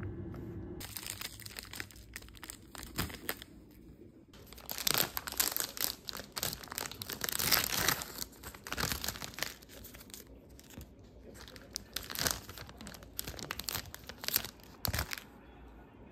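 Plastic ice-cream wrapper crinkling and rustling in quick irregular bursts as it is torn open and handled.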